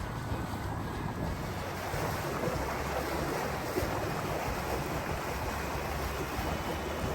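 Wind buffeting the microphone and water rushing along the hull of a Nordic Tug 37 motor yacht under way, with the steady low hum of its diesel engine beneath.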